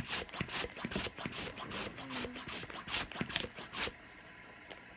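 Hand balloon pump worked rapidly, blowing puffs of air at a spinning fidget spinner: a quick run of hissing air bursts, about two to three a second. The pumping stops about four seconds in.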